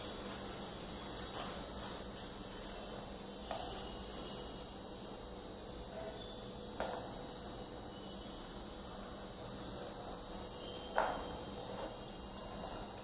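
Small plastic toy dishes and pots knocking now and then as they are handled, the loudest knock about eleven seconds in. Behind them, high chirps in quick groups of four repeat every two to three seconds.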